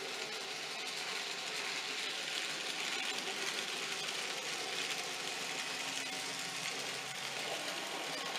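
N gauge model train running on the layout: the small electric motor's steady whir and wheels on the rails, a little louder around the middle as the train passes.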